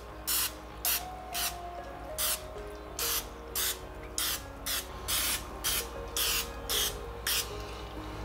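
Aerosol can of Pam cooking spray hissing in a run of short spurts, about two a second, as oil is misted over breaded chicken thighs.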